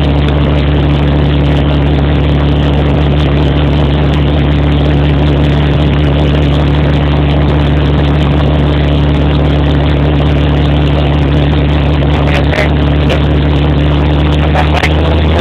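A helicopter's engine and rotor running steadily, heard from inside the cabin. It is a loud, even drone with several fixed low tones, which shift slightly near the end.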